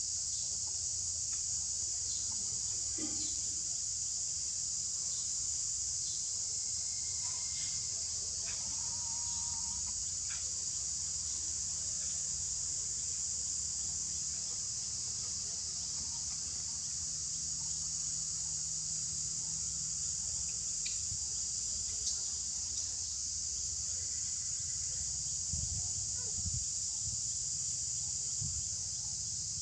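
Steady, high-pitched drone of a forest insect chorus, with a few faint clicks now and then.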